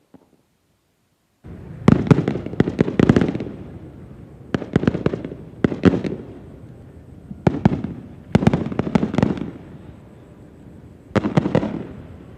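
Aerial fireworks bursting in volleys of sharp bangs, several clusters a few seconds apart, with a low rumble lingering between them; the bangs begin about a second and a half in.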